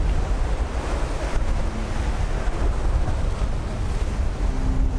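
Wind buffeting the microphone on the deck of a sailing yacht under way, over the steady rush of sea and waves along the hull.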